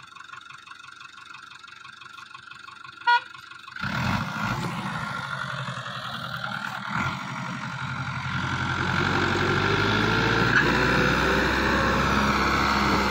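Tractor engine working hard under load as it tries to pull a heavily loaded sugarcane trolley up out of a stuck position on a sandy slope. A brief sharp toot comes about three seconds in. The engine comes in loudly about a second later, grows louder, and runs heavy and steady near the end.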